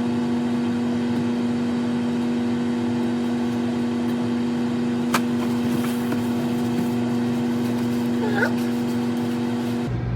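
Microwave oven running, a steady electrical hum, with a single sharp click about five seconds in.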